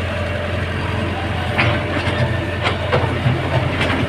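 Heavy road-construction machinery running with a steady low engine drone, with several sharp metallic clanks in the second half.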